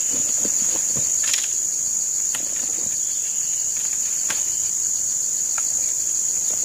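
Steady, high-pitched chorus of insects, with a few light knocks and taps scattered through it.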